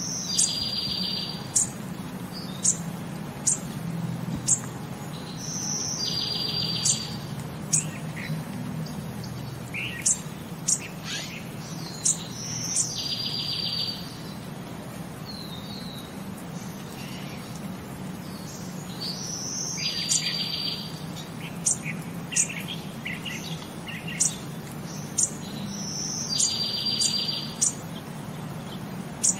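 Birds chirping and calling: many short, sharp chirps with a buzzy trilled call that comes back about every six and a half seconds, over a low steady hum.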